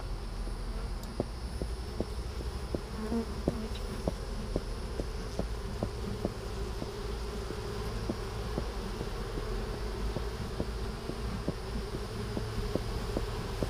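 A colony of Italian honey bees buzzing in a steady hum over an open brood box, stirred up by smoke from a bee smoker.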